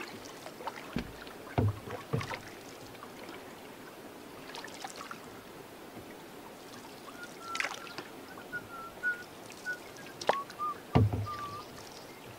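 Canoe being paddled: scattered paddle splashes and drips, with a couple of louder knocks of the paddle against the canoe's hull, about a second and a half in and near the end. A faint, thin, wavering whistle runs through the second half.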